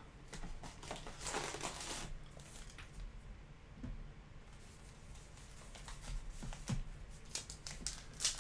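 Trading card packs rustling as they are pulled from a cardboard hobby box, then a pack's wrapper crinkling as fingers work at its sealed edge. The rustling is loudest about a second in and picks up again near the end.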